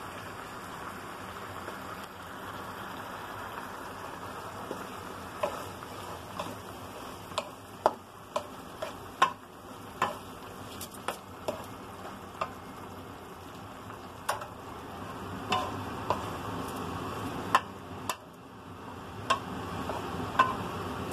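Squid, chicken, cabbage and shirataki sizzling in squid ink in a frying pan as they are stirred, with irregular sharp clicks from about five seconds in.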